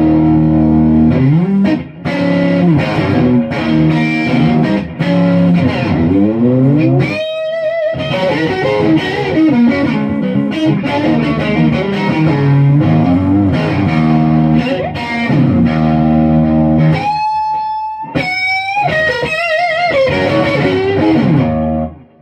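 Firebird-style electric guitar played through an amp on its neck pickup, lightly distorted: ringing chords and lines with notes bent up and down, and high notes held with a wide, wavering vibrato around a third of the way in and again near the end.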